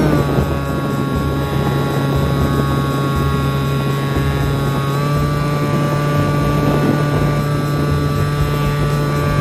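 Electric motor and pusher propeller of a HobbyKing Bix3 foam RC plane in flight, picked up close by an onboard camera. A steady whine drops in pitch right at the start and steps up slightly about five seconds in. Wind rumbles on the microphone underneath.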